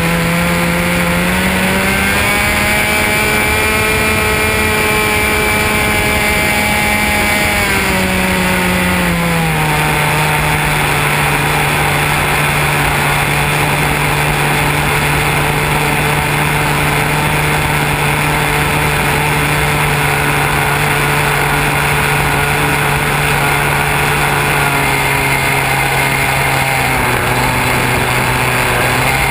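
Radio-control model airplane's motor and propeller running steadily, heard up close from a camera mounted on the airframe. The pitch rises about a second in, holds, drops back between about eight and ten seconds in, and steps down slightly again near the end.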